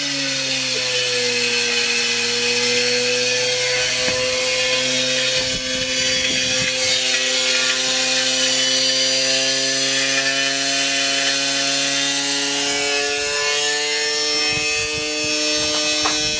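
Washing machine spinning hard with a brick inside: the motor and drum run with a steady whine over rough grinding and scraping. The pitch dips at first and then slowly climbs.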